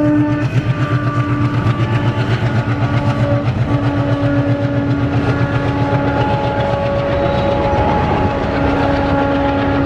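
ALCo diesel locomotive hauling passenger coaches under power: a rapid, pulsing engine throb with steady droning tones over it.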